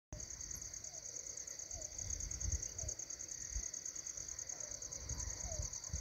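A steady, high-pitched insect chorus with a fast, even pulse. Underneath it a faint short note repeats about once a second, and there are irregular low rumbles.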